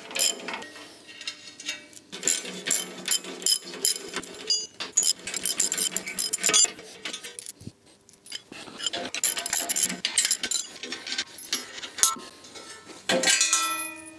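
Ratchet wrench clicking in quick runs as bolts are undone from a steel column bracket, mixed with metallic clinks of spanners and bolts. Near the end a piece of steel clangs and rings briefly.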